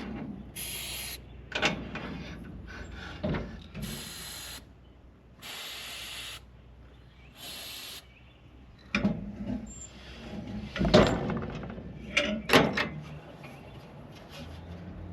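Hands-on work noises: scattered knocks and clunks of parts or tools being handled, the loudest near the end, with four short bursts of hissing in the first half.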